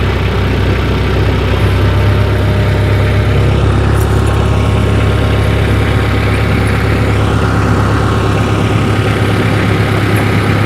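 Tractor engine running steadily at low speed while the tractor is driven slowly forward.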